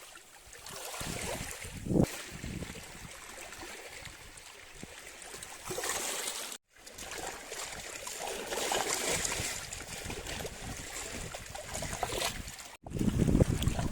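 Sea waves washing and splashing, swelling and easing, cut off twice by brief dead silences where the recording is cut.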